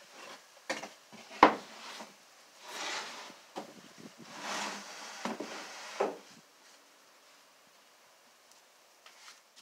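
Plywood wheel-well box knocking and scraping against the van's plywood floor as it is handled and set in place: a few sharp knocks, the loudest about a second and a half in, and two short scraping rubs around the third and fifth seconds.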